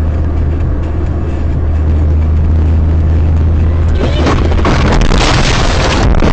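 Car engine and road noise as a steady low drone inside the cabin. About four seconds in, this breaks into a loud, noisy collision with several impacts as the car strikes another car crossing its path and is thrown about.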